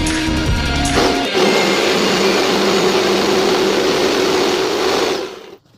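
Music with a heavy beat for about the first second. Then a jigsaw mounted upside down under a tabletop runs steadily with a steady whine while its blade cuts through a cardboard template, and it stops sharply near the end.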